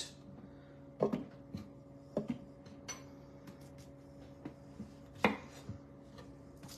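A few scattered knocks of a knife and yellow squash on a wooden cutting board as the squash is handled and sliced, the strongest about a second in, two seconds in and five seconds in. A faint steady hum lies underneath.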